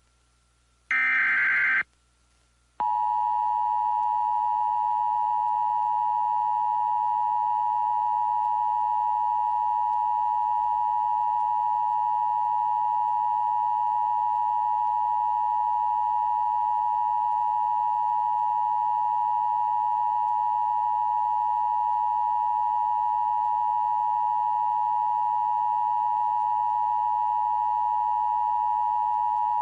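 Emergency Alert System broadcast from NOAA Weather Radio: one short burst of SAME header data noise, about a second long, then after a brief gap the attention tone comes on, a single steady electronic tone held without a break. It announces a tornado warning.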